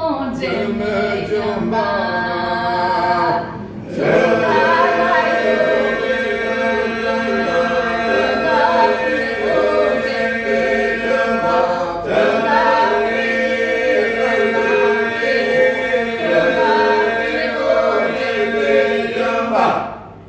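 Albanian polyphonic a cappella singing: a woman leads the melody while the group holds a steady drone beneath her. The voices break off briefly a little before four seconds in, come back fuller, and trail off near the end.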